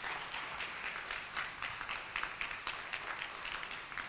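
An audience applauding: many people clapping steadily in a hall.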